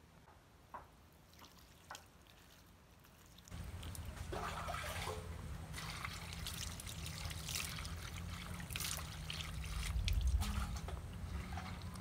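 Water poured from a plastic dipper splashing and trickling over fresh mushrooms in a woven bamboo basket as they are rinsed, starting about three and a half seconds in after a few faint clicks.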